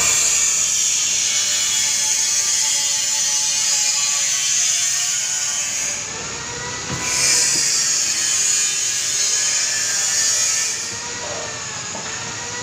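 A high-pitched whirring machine, like an electric motor running at speed, runs loud and steady. It dips briefly about six seconds in, comes back, and drops lower about eleven seconds in.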